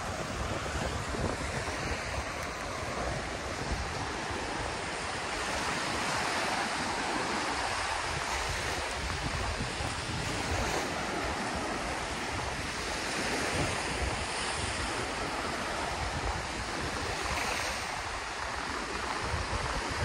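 Sea waves breaking and washing onto the beach, the surf swelling and easing every few seconds, with wind buffeting the microphone.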